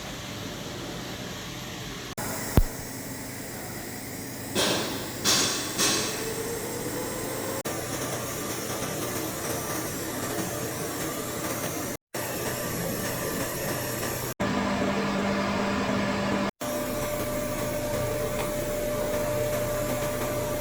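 Steady hiss and hum of an orbital TIG pipe welding machine at work, broken by several abrupt cuts. A sharp click comes about two and a half seconds in, and a few short bursts of noise follow around five seconds in.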